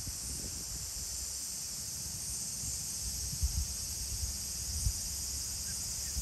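Steady high-pitched insect chorus over a low rumble, with two soft low thumps in the second half.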